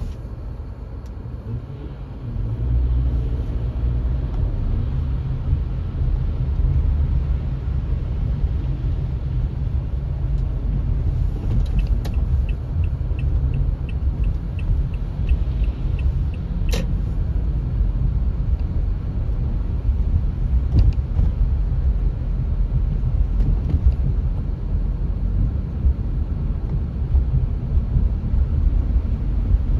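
Steady low rumble of a car driving, road and engine noise heard from inside the cabin. A little past the middle there are a few seconds of faint, even ticking, followed by one sharp click.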